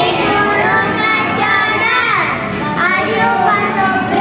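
Children singing a song, with music behind them.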